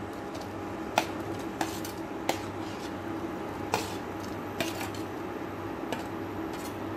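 A metal spoon clinking and scraping against a steel bowl as mashed boiled potatoes are pushed out into a pot, with about seven sharp clinks over a steady low hum.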